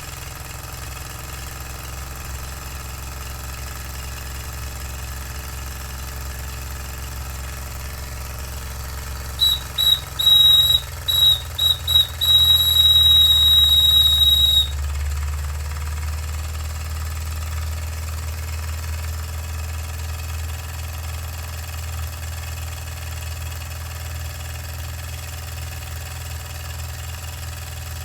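Empire No.62 toy steam engine running fast and steadily. About ten seconds in, its steam whistle gives several short toots and then a held note of about two seconds that cuts off sharply.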